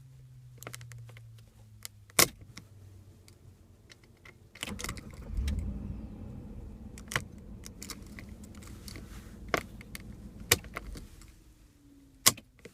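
Keys jangling on the ring and sharp clicks from a 2007 Jeep Commander's push-to-turn recall replacement ignition switch as the key is pushed in and turned. About five seconds in the engine starts with a low rumble, runs steadily, and is switched off shortly before the end.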